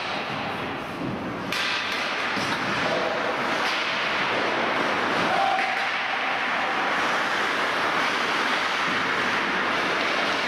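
Ice hockey play in an indoor rink: a steady scrape and hiss of skates on the ice, with occasional thuds and clacks of sticks, puck and boards, and faint voices from the players or crowd.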